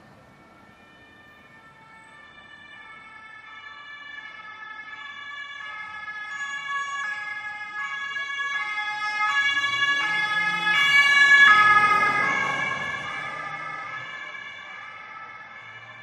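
Ambulance siren alternating between two tones, growing steadily louder as the vehicle approaches. It passes close about eleven or twelve seconds in, with a low rumble of the vehicle's engine and tyres, then fades away.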